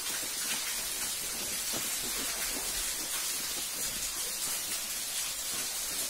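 Steady hiss of water falling and splashing down a waterfall's rock face, even throughout, with a few faint knocks and rustles.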